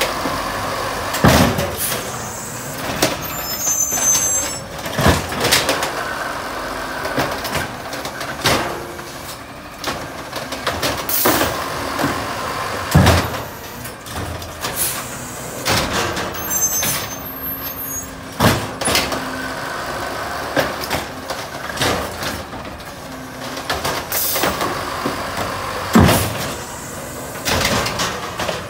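Automated side-loader garbage truck emptying wheeled trash carts, its engine and hydraulics running, with a sharp bang every few seconds as carts are dumped into the hopper and set back down. A couple of brief high squeaks come through as it works its way along.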